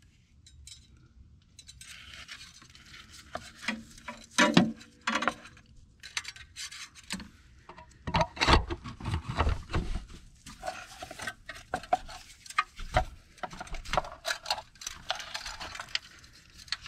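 Metal engine dipstick tube clinking, knocking and scraping against engine parts as it is fed back down into its hole in the block. The loudest knocks come about four seconds in and again around eight to ten seconds.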